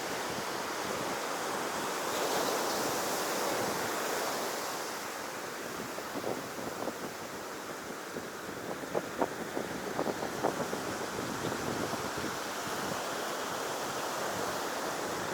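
Ocean surf breaking and washing up the shore, a steady rush of water that swells about two seconds in, with wind buffeting the microphone. A few faint light ticks come near the middle.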